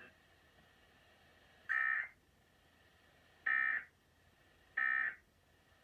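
Emergency Alert System end-of-message data bursts sent over a broadcast: three short, identical buzzy bursts about one and a half seconds apart, signalling the end of the alert test message.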